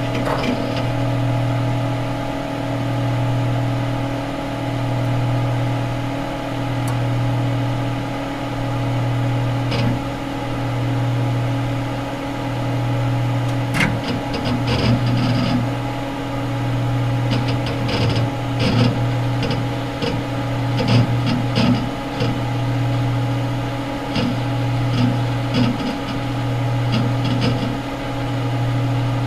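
Computer running after being switched on: a steady low hum that swells and dips about every two seconds, with a fainter steady tone over it. From about halfway on, scattered short clicks and ticks come through.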